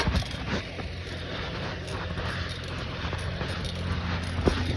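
A bike rolling over a dirt trail: a steady low rumble of tyres and riding noise, with a couple of light rattles.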